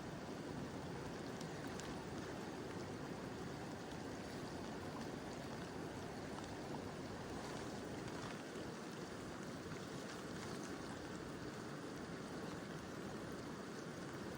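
Mountain river flowing in a steady rush of water, with gentle rain falling.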